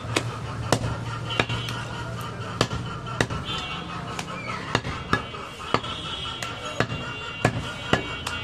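Large butcher's knife chopping goat meat and bone on a wooden log block: about a dozen sharp chops at uneven intervals, roughly one to two a second.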